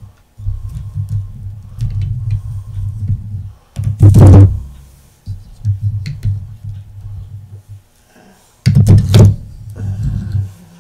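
Handling noise from the clamped lure mold and clamps being worked on the workbench: low rumbling and bumping, with two loud thuds about four and nine seconds in.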